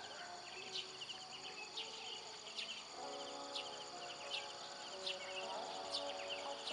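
Early-morning outdoor chorus: a short high chirp repeats about once a second over a steady high insect drone. From about three seconds in, a faint, distant sustained melody joins underneath.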